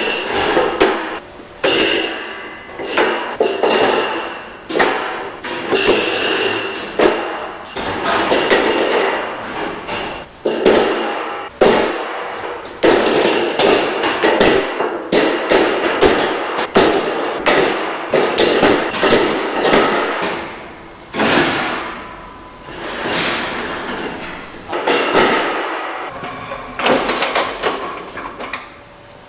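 Steel pallet-rack beams clanging as they are set down and stacked one on another on a wooden pallet: a long run of metal-on-metal bangs and knocks, each ringing briefly.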